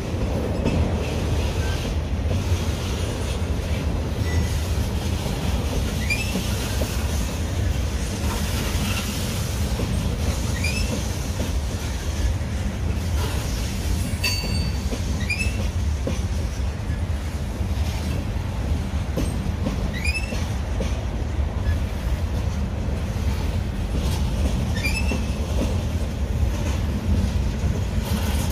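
Freight train cars rolling past: a steady low rumble of steel wheels on rail, with short high wheel squeals recurring about every five seconds.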